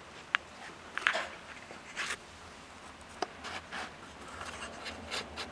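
A few light, scattered clicks and taps as a freshly sharpened lawn mower blade is handled and checked for balance.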